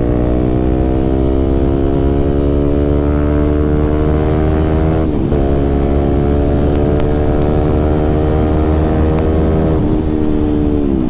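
KTM RC 200's single-cylinder engine through an aftermarket SC Project-style full-system exhaust, accelerating under way. The note climbs steadily, drops at an upshift about five seconds in, climbs again, and drops at another shift near the end.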